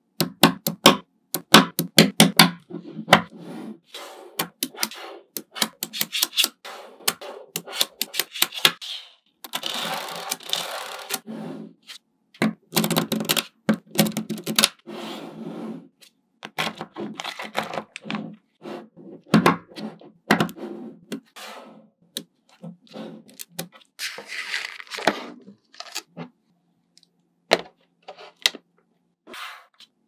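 Small magnetic balls clicking together in quick, uneven runs as sheets of them are folded and joined. There are longer stretches of rattling about ten seconds in and again near the end, as many balls roll against each other at once.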